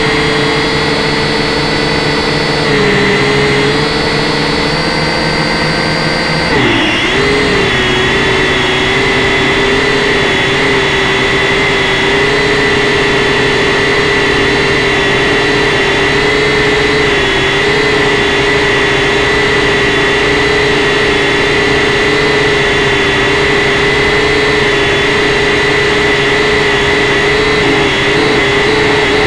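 Quadcopter's electric motors and propellers whining steadily in flight, heard from the craft itself. About seven seconds in the pitch dips and settles a little lower, then holds with small wobbles.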